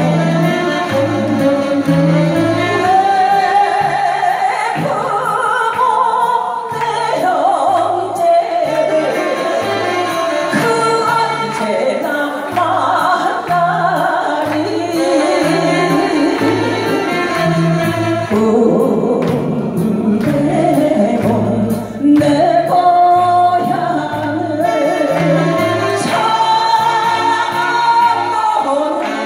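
A woman singing an old Korean popular song into a microphone, accompanied by saxophones over a steady bass beat.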